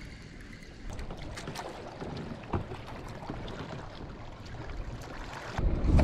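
Wind on the microphone and water lapping around a fishing kayak, with scattered small clicks and taps from a baitcasting rod and reel being worked. There is a sharper tap about two and a half seconds in, and a loud low rumble near the end as hands grab the reel close to the microphone.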